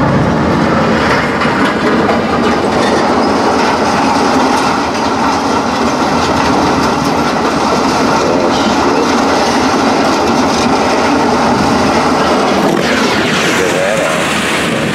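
Loud, continuous mechanical rumble with metal rattling and clatter as the truck backs up in the scrap yard. The low rumble drops away at the very end.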